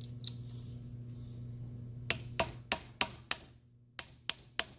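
Mallet tapping a steel drift tool, driving a new protective sleeve into a shift-detent bore in the aluminium casing of a ZF S5D 320Z five-speed gearbox. Sharp knocks about three a second start a couple of seconds in: five, a short pause, then three more.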